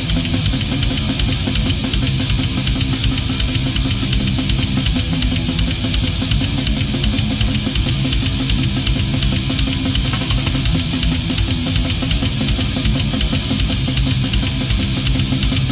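Extreme metal played by a full band: distorted electric guitars, bass and a drum kit hitting fast, even beats, dense and loud throughout.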